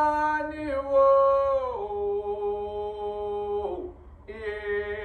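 A man singing unaccompanied in long held notes, each stepping down in pitch into the next, with a short break a little before four seconds in before a new note begins.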